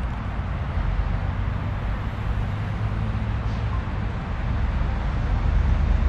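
Steady low outdoor background rumble with no distinct events.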